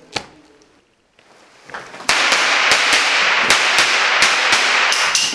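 Cap guns firing: a single sharp pop just after the start, then after a short pause a rapid run of a dozen or so loud cracks, fired a few per second over a continuous loud hiss. These are toy revolvers setting off gunpowder caps.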